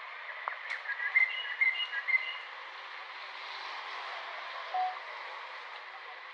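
A quick run of short, high-pitched chirping calls from a small animal, about one to two seconds in, over a steady outdoor hiss.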